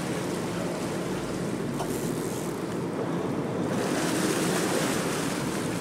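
Steady rush of churning sea water alongside a sportfishing boat, with wind buffeting the microphone.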